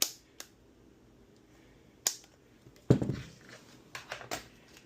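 Scattered clicks and knocks of small parts and tools being handled on a workbench, the loudest a knock about three seconds in.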